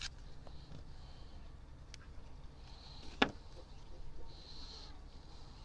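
Quiet handling of small JB Weld epoxy tubes as they are opened and squeezed: faint clicks and rustles, one sharp click a little over three seconds in, and two short soft hisses.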